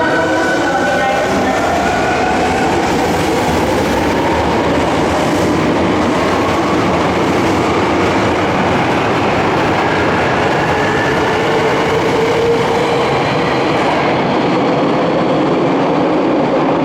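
Hankyu semi-express train running along the underground subway platform: steady, loud wheel-on-rail rumble with some clickety-clack, and a faint motor whine that slowly shifts in pitch.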